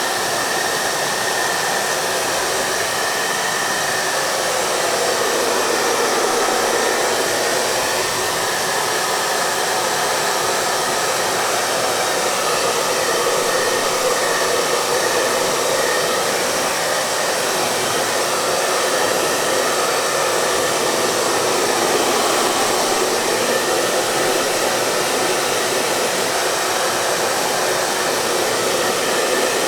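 Hair dryer running steadily: a continuous blowing rush of air with a faint steady whine in it.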